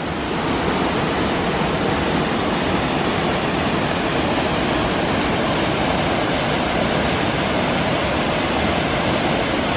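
Waterfall pouring out of an old mill's brick ruins and down over rock ledges into foaming rapids: a steady, even rush of water.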